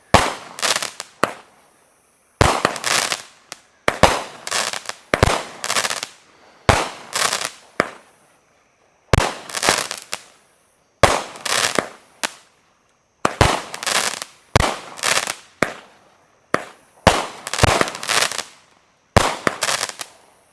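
Golden Peacock 16-shot consumer firework cake firing shot after shot: each shot a sharp launch thump followed by about a second of bursting, roughly one every one to two seconds.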